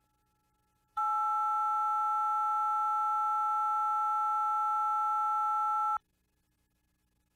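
Steady electronic tone of two pitches sounding together, starting about a second in, held for about five seconds, then cutting off sharply.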